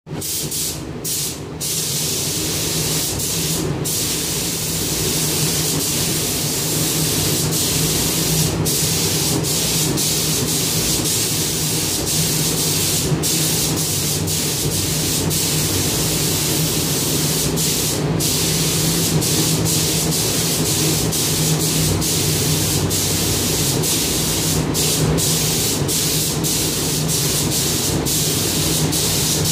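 Gravity-feed spray gun hissing as it sprays paint, the hiss broken by many short pauses that come more often in the last third. A steady low hum runs underneath.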